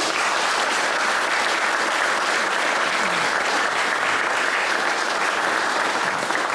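Audience applauding, a steady round of clapping from a room full of people.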